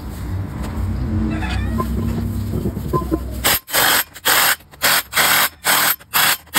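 Impact wrench running the flywheel bolts down on a diesel engine, in about six short trigger bursts with gaps between them, starting about three and a half seconds in. Before that there is a low hum and a few light metal clinks.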